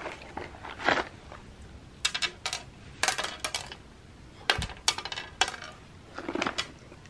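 Cats eating dry treats off a hard platter: scattered sharp clicks and clinks of treats, teeth and paws against the platter, in quick clusters about two to three and a half seconds in and again around five seconds.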